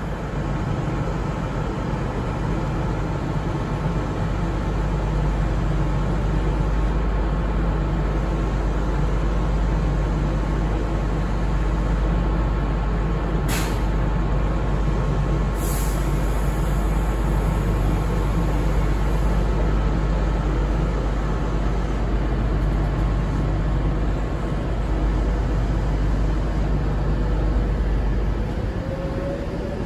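Avanti West Coast Class 390 Pendolino electric train pulling out past the platform. A steady low rumble and hum, with two sharp clicks in the middle and a faint rising whine near the end.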